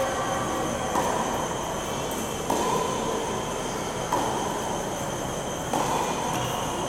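Tennis ball being struck in a rally, about every second and a half, each hit ringing on in the large echoing indoor hall, over a steady hum with high whistling tones.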